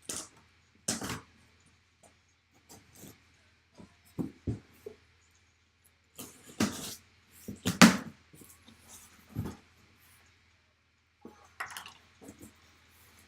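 Sealed cardboard box being opened and its packing handled: short scrapes, rustles and knocks of cardboard and packaging coming in scattered bursts, the loudest a little past the middle.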